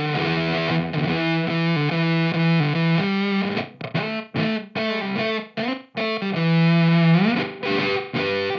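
Electric guitar, a Sire S7 S-style guitar, played through a Teisco Fuzz pedal: a heavily distorted fuzz riff with held notes, a choppy run of short notes in the middle, and a long note that slides up in pitch near the end.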